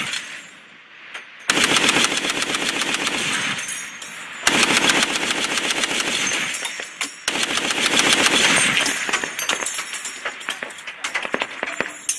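M2 .50-calibre heavy machine gun firing in long bursts, with short breaks about a second and a half, four and a half and seven seconds in.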